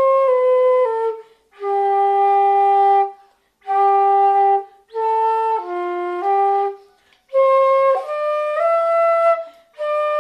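Solo concert flute playing a slow melody of held notes, in short phrases separated by brief breaks.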